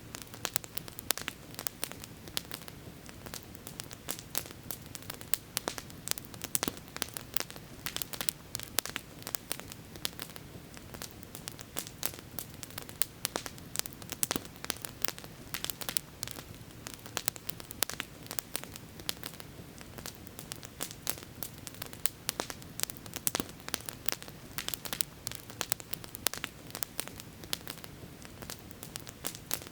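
Campfire crackling, with many irregular sharp pops and snaps over a steady low rushing background.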